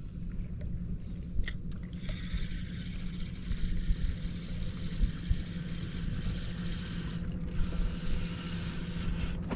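A boat's motor running steadily with a low hum, with a few light knocks and a soft hiss over most of the span.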